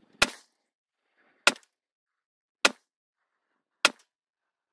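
Ruger Mini-14 Ranch Rifle firing four aimed semi-automatic shots at an even pace, a little over a second apart.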